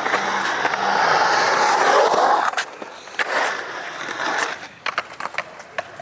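Skateboard wheels rolling fast over skatepark concrete with a loud, even rumble that eases off about two and a half seconds in, then swells again. It ends in a quick series of sharp clacks near the end.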